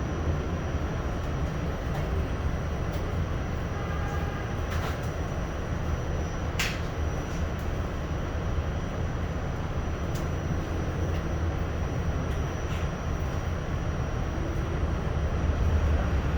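Steady low rumble of a New York City subway train running, with a few faint sharp clicks and rattles.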